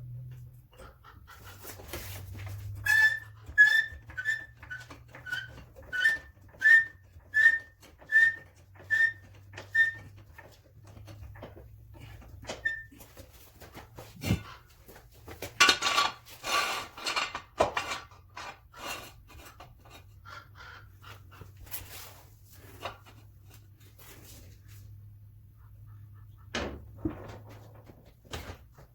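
Vehicle jack being pumped up, a short squeak on each stroke about every 0.7 s, about ten in a row. A burst of metallic clattering follows about halfway through, then a few single knocks.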